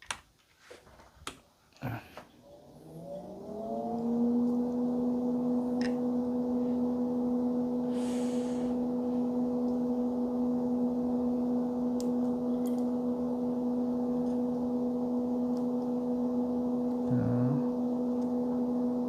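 A few clicks, then a small electric motor starts, its hum rising in pitch over about a second and a half and then running steadily.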